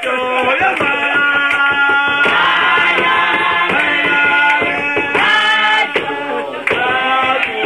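A group of people singing together in held, chant-like notes, with hand clapping and a hand-beaten rhythm keeping time.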